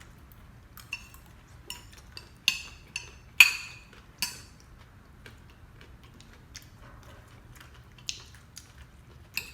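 Cutlery clinking against a dish while eating, a quick run of sharp clinks with short ringing, loudest about three and a half seconds in, then two more near the end.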